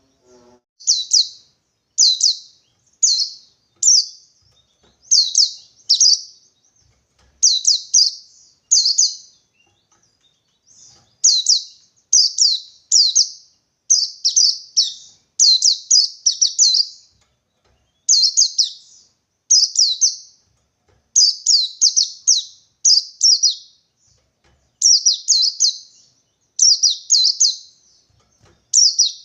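Pleci (white-eye) singing its 'ngalas' call: short, high chirps in quick clusters of two or three, repeated about once a second without a break.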